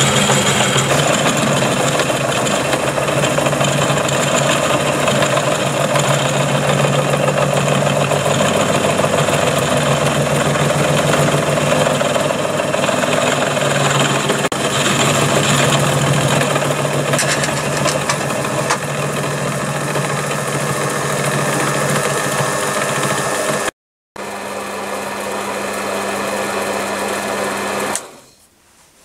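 A 200 W treadmill DC motor driving a 12 mm three-flute HSS end mill through the Myford milling attachment, milling hard steel bar on the lathe with a steady machining sound. A momentary break comes a few seconds from the end, after which the running goes steadier with one hum; it stops about a second before the end.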